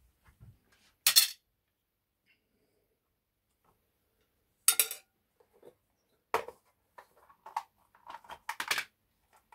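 Cut lead slug cores clinking and rattling in a round metal tin as it is handled and shaken to spread swage lube over them. A sharp clink about a second in, a cluster of rattles near five seconds, then lighter clicks and rattles toward the end.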